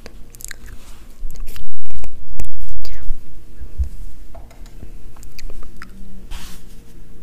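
Close-miked ASMR trigger sounds: soft clicks, rustles and mouth-like noises, with a loud low rumbling from about a second and a half in to about three seconds, and a short swishing hiss near the end.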